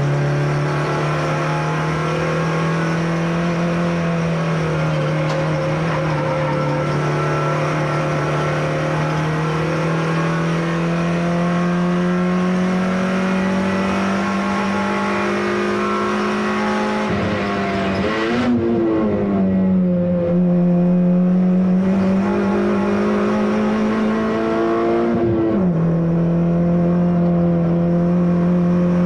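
Citroen C2 VTS's 1.6-litre four-cylinder engine pulling hard at racing pace, heard from inside the stripped cabin. The revs climb slowly, break and dip about 17 seconds in, then rise again. About 25 seconds in they drop suddenly with a gear change and climb once more.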